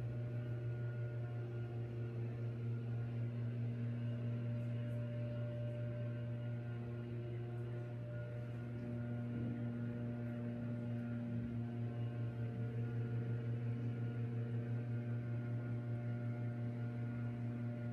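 Gas leaf blower's engine running steadily at a distance: a continuous hum whose pitch wavers slightly midway as the throttle changes.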